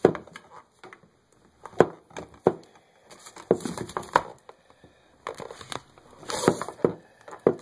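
Handling noise at a countertop: paper rustling and crinkling, with a string of sharp clicks and light knocks as parts and tubing are moved about. A longer rustle comes about six seconds in.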